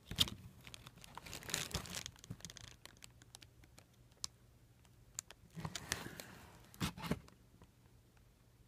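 Packaging being handled, crinkling and tearing in several short bursts with light clicks, strongest near the start and again about six to seven seconds in, then dying away.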